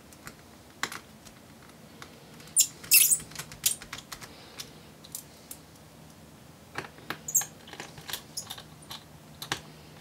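Irregular small clicks and taps of a small Phillips screwdriver working the battery's retaining screws in a laptop's metal chassis, with a brief louder clatter about three seconds in.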